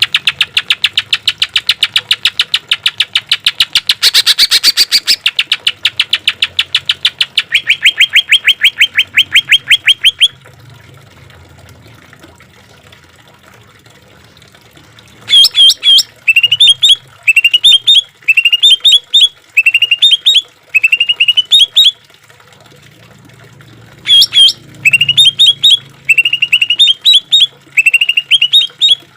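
Cucak ijo (green leafbird) singing. It opens with about ten seconds of fast repeated sharp notes, several a second, ending in a run of even, steady notes. After a pause of a few seconds it gives two bouts of short, quick rising whistled phrases, each about once a second.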